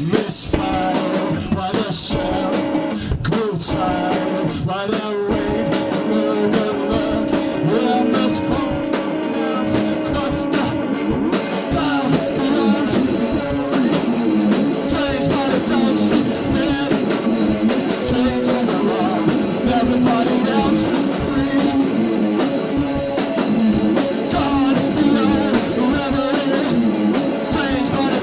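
Blues-rock band playing: electric guitar over a drum kit with cymbals, the instruments drastically out of tune.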